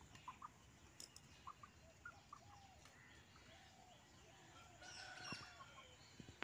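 Faint, scattered clucks of chickens, with small birds chirping now and then.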